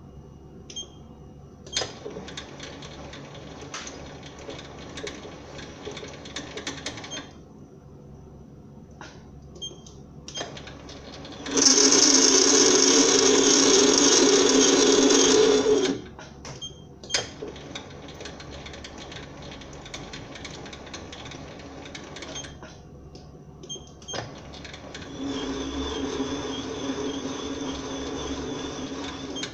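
SIEG SC4 bench lathe running in several spells while screw-cutting a thread in brass, the spindle and feed gearing whirring and stopping in between, with a few sharp clicks. The loudest spell lasts about four seconds, from about twelve seconds in.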